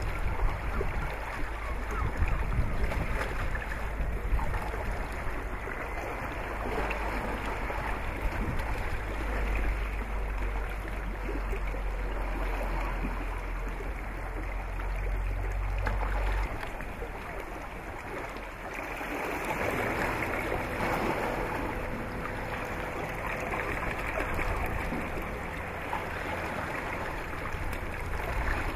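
Steady open-air sound of water and wind, with a low rumble that drops away about sixteen seconds in.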